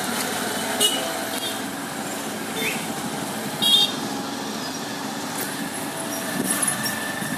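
Busy street ambience at a night fair: a steady din of distant voices and traffic, with a few brief sharp sounds, the loudest a little under four seconds in.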